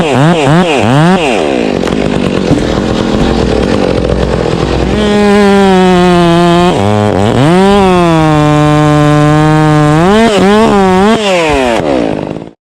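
Two-stroke chainsaw revved hard several times in quick succession, then running rougher and lower for a few seconds. It then holds a steady high-pitched scream at full throttle, drops sharply once and climbs back, gives a few more quick blips of the throttle, and cuts off suddenly near the end.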